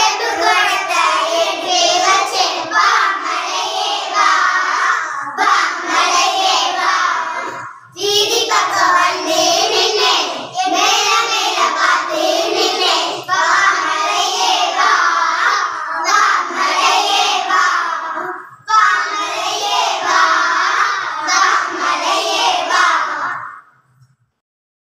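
A group of children singing a Tamil nursery rhyme together, line by line with brief pauses between phrases; the singing stops near the end.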